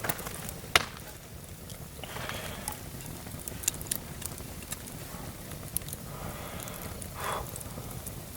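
Small wood campfire burning with a low hiss and scattered sharp pops and crackles of burning sticks.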